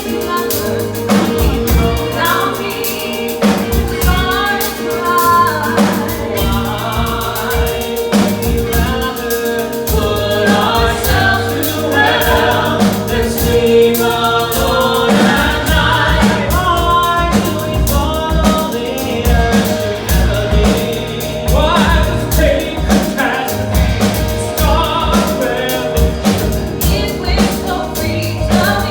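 Several voices singing together over a band with drum kit, with a steady beat throughout.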